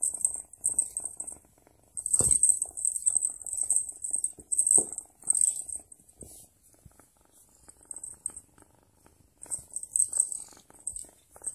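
A kitten's toy jingling in short bursts as the kitten bats and bites at it, with a few soft knocks, the clearest about two seconds in.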